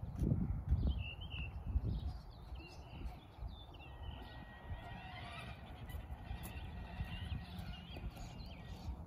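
Small birds chirping and calling over and over, with a run of short rising chirps near the end, over a low rumble that is strongest in the first two seconds.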